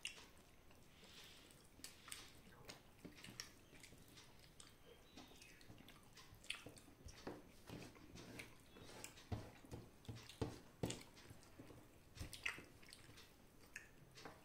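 Faint eating sounds: fingers picking at cornflour-coated crispy fried chicken on a steel plate, with chewing. It comes as scattered small clicks and wet smacks at irregular intervals.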